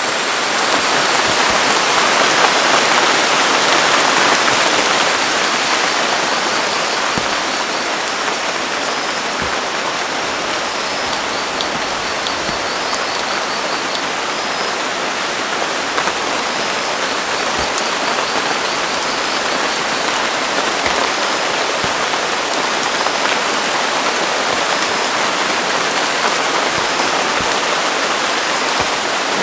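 Heavy rain falling on pond water and leaves, a dense, even hiss. It swells up right at the start, peaks in the first few seconds, then holds steady.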